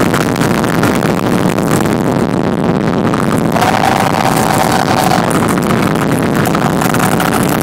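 Loud live electronic rock music in a concert hall, heavily distorted audience recording, with a muddy, rumbling low end. A clear held high note sounds about three and a half seconds in for roughly a second and a half.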